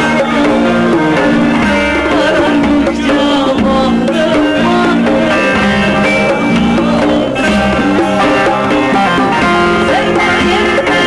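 Live Turkish folk music played loud through a stage sound system: plucked strings over drum and hand percussion, with a woman singing.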